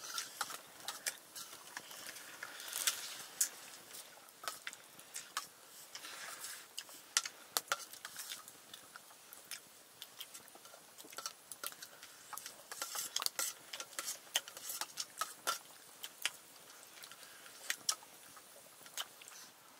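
Eating from a metal plate: many irregular sharp clicks and light clinks of hands or a spoon against the plate, with mouth sounds of chewing.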